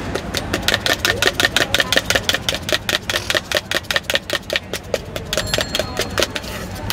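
Spiced chickpea mix being shaken hard in a plastic mug capped by the vendor's palm to mix it: a rapid, even rattle of several shakes a second, easing off near the end.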